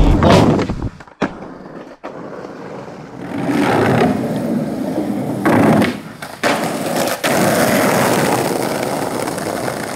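Skateboard wheels rolling over wooden deck boards, then rolling on street asphalt: a steady rushing rumble broken by a few abrupt cuts.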